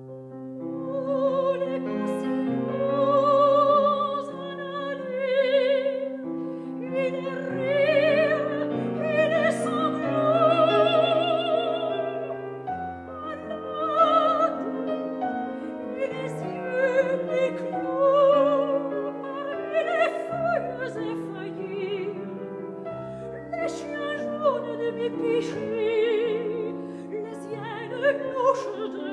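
Soprano singing a French art song with piano accompaniment, her voice carrying a marked vibrato over the piano's steady repeated off-beat chords and held bass notes.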